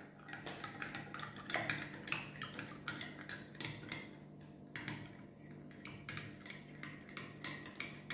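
A spoon stirring in a drinking glass, making light, irregular clinks against the glass a few times a second, as yeast, salt and sugar are dissolved in warm water.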